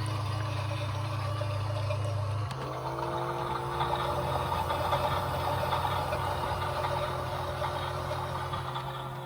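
Toy washing machines running: a steady low hum of small electric drum motors. About two and a half seconds in, a motor starts with a quick rising whine that settles into a steady tone as a drum spins up.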